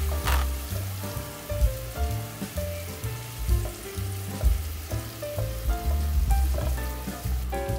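Chopped onions sizzling in hot oil as a silicone spatula pushes them to one side of the tilted pot, with soft background music.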